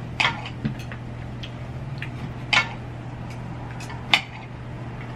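Metal cutlery clinking and scraping against ceramic plates and a serving pan: a handful of separate sharp clinks, the loudest about two and a half and four seconds in, over a steady low hum.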